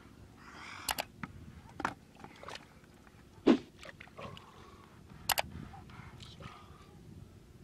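Wet handling of live fish in muddy water and a plastic bucket: scattered sharp clicks and slaps, with one loud wet plop about three and a half seconds in.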